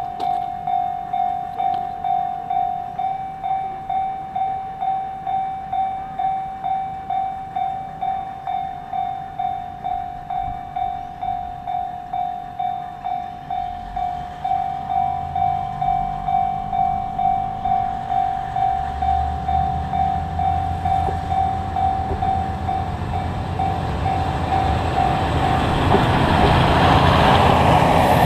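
Japanese level-crossing alarm ringing steadily, about two dings a second. A low diesel rumble grows from about halfway. Near the end a diesel express train passes close with a loud rush that swamps the bell.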